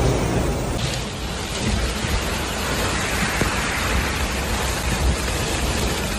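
Heavy rain: a steady rushing hiss, its sound changing slightly about a second in.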